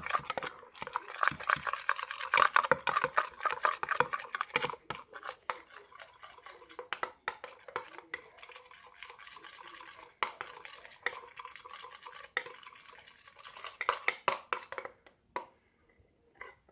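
A spoon stirring and scraping in a bowl, mixing potato starch into homemade slime. There is a fast clatter of clicks for the first few seconds, then slower, sparser scrapes.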